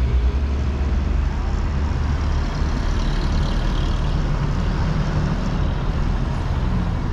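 Steady low rumble of a moving road vehicle, engine and road noise.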